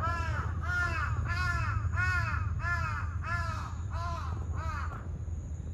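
Crow cawing: a run of about eight evenly spaced caws, roughly one and a half a second, that stop about five seconds in.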